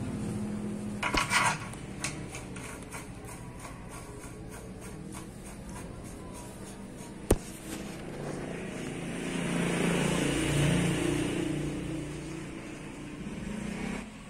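Short metallic clinks and one sharp click of tools and parts on a scooter's steering head as it is refitted. Over the second half, a passing vehicle swells and fades.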